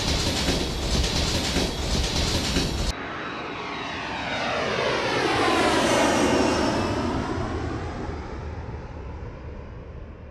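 A loud, even rushing noise that cuts off abruptly about three seconds in, followed by an aircraft passing overhead: its engine noise swells to its loudest around the middle, with a sweeping, shifting tone, then slowly fades away.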